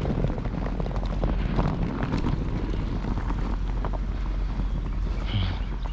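Steady low rumble with wind buffeting the microphone, scattered with small clicks.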